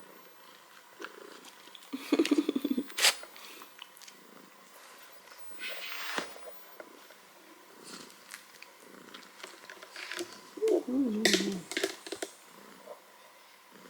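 A pet cat purring close by, with two louder, pitched, pulsing stretches, about two seconds in and again about eleven seconds in.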